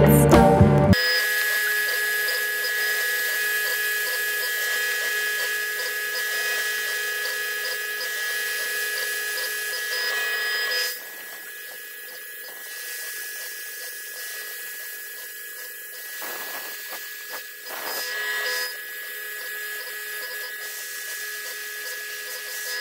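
CNC mill spindle whining steadily while a small end mill cuts a metal part on the fourth axis, holding several steady pitches. About eleven seconds in it drops noticeably quieter. Background music fades out in the first second.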